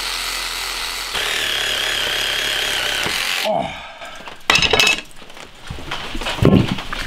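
Cordless reciprocating saw cutting through a beef hoof and shin bone, running steadily with a high whine that gets louder about a second in as the blade bites into the bone. It stops about three and a half seconds in, and a few short loud noises and a low thump follow.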